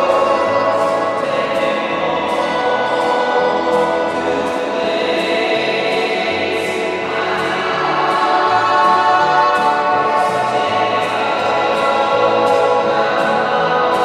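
Hockey goal song: choral music with sustained voices over a steady beat.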